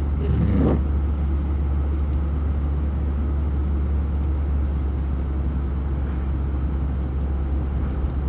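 Steady low rumble of a car driving: engine and road noise. A brief rising sound comes about half a second in.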